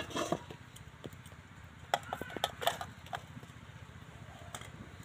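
Metal kitchen utensils, a wire frying strainer among them, knocking and clinking against a steel kadai: a string of short, sharp knocks, bunched just after the start and again around two to three seconds in, over a faint steady low hum.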